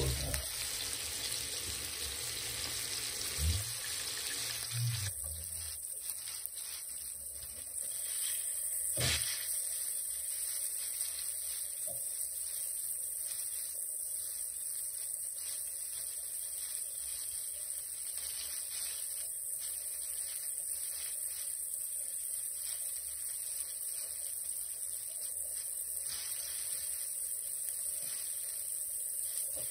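Flour-coated Black Sea gobies frying in oil in a pan: a steady sizzle, with a few low knocks in the first five seconds and a sharp click about nine seconds in.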